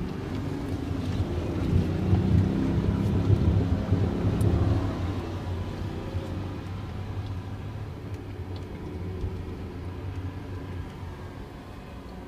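Off-road SUV's engine heard from inside the cabin, working under load as the vehicle pushes through flood water, with water splashing against the body. It is loudest for the first few seconds, then eases and quietens as the vehicle rolls out onto grass.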